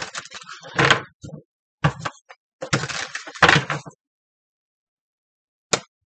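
Tarot deck being shuffled and handled in several short rustling bursts over about four seconds, then a single sharp click near the end.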